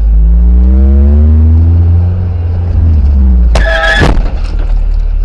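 Loud low engine and road rumble from a moving car, the engine's pitch rising over the first two seconds as it accelerates. About three and a half seconds in comes a short, sharp, loud sound lasting about half a second.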